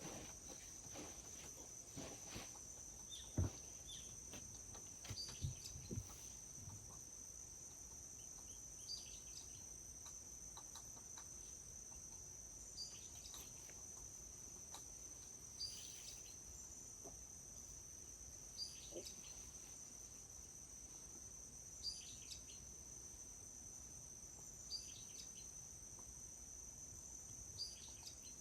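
Crickets trilling in a steady high chorus, with a short high chirp repeating about every three seconds. A few soft knocks come in the first six seconds, the loudest about three and a half seconds in.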